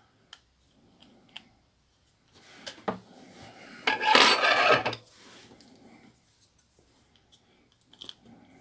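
Handling noise from a plastic phone housing and small parts: a few light clicks, then a brief scraping rub about four seconds in, and faint ticks near the end.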